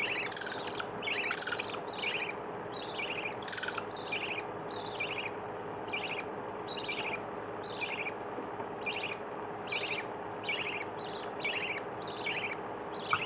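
Three-day-old lovebird chicks cheeping: a steady run of short, thin, high calls, about one to two a second, each falling in pitch.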